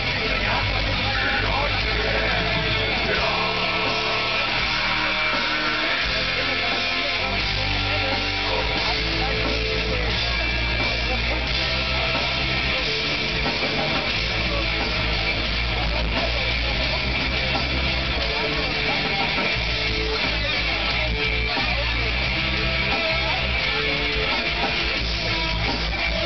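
Heavy metal band playing live through a club PA: distorted electric guitars, bass and drums in a loud, dense wall of sound, heard from within the audience.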